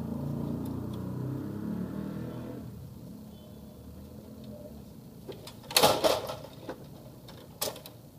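Laser printer's motor and gears running with a low hum, winding down and stopping about two and a half seconds in. A quieter stretch follows, then a short burst of sharp clacks about six seconds in and one more near the end.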